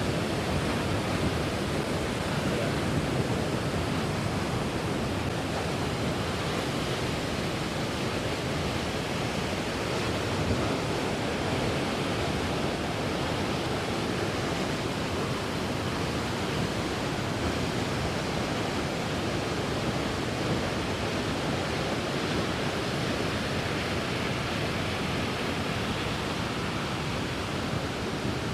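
Water rushing down from the dam in a steady, even rush that does not break or change.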